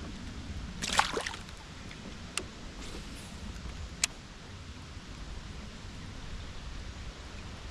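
Steady rush of river water around a kayak, with a splash about a second in and two sharp clicks later.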